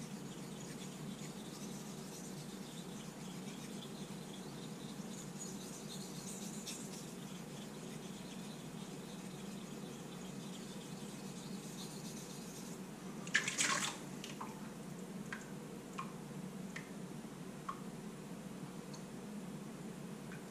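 Straight razor being honed on a wet King 1000/6000 combination waterstone: quiet, wet strokes of the blade on the stone. A brief louder hiss comes about two-thirds of the way through, followed by a few small clicks.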